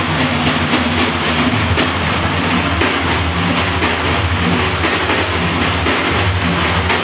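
A large ensemble of frame drums played together in a steady, dense rhythm, with a deep booming low end under the beats.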